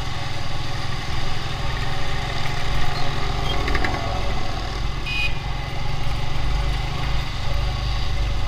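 Motorcycle riding in city traffic: the bike's engine running under a steady low rumble, with a short horn toot about five seconds in.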